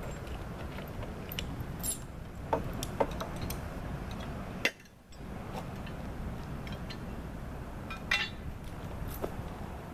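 Light metallic clinks now and then over a steady low rumble, with a short dip in level about halfway through.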